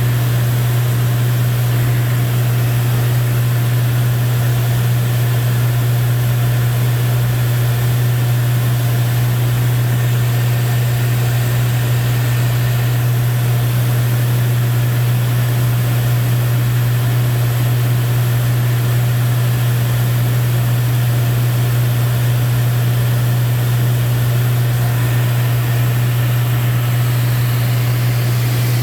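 Steady drone of a Lancair IV-P's engine and propeller heard from inside the cockpit in flight, a strong low hum with an even wind hiss over it.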